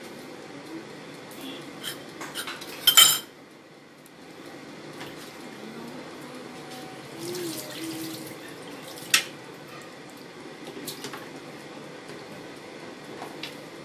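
An air fryer running while it cooks, its fan giving a steady whir. Over it come scattered clinks, with a loud clatter about three seconds in and a sharp knock about nine seconds in.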